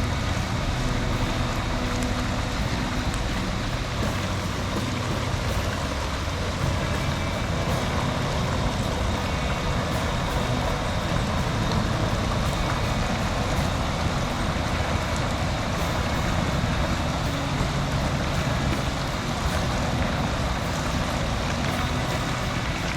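Mountain stream water rushing over rocks, a steady, even rush.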